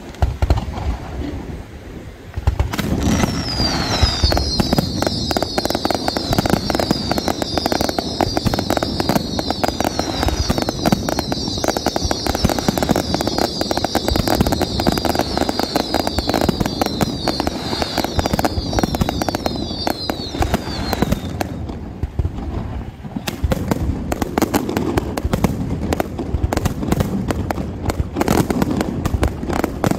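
Fireworks display in a dense barrage of rapid bangs and crackling, with many whistling shells overlapping, each falling in pitch, from a few seconds in until about two-thirds of the way through.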